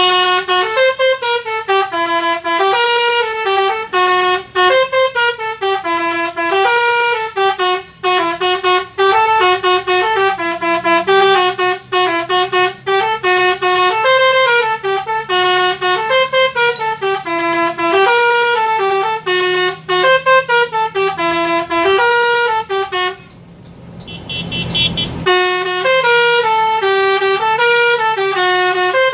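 Basuri telolet horn playing a tune: a string of horn notes stepping up and down in a fast, repeating melody. About three-quarters through the tune breaks off for a couple of seconds under a rushing hiss, then starts again.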